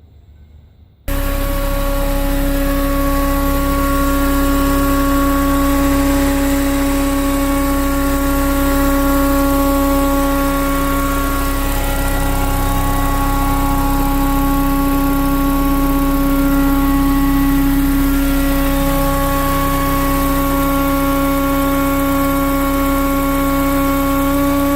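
Supercharged Mini Cooper R53 engine idling steadily with a strong, even whining tone over the engine note, coming in suddenly about a second in.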